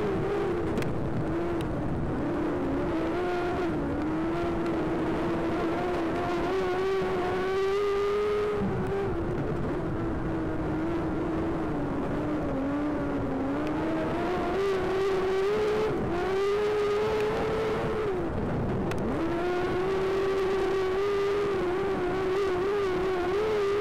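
Speedway race car engine running hard at high revs through laps of the oval. The engine note dips sharply and climbs back several times as the throttle is lifted and reapplied.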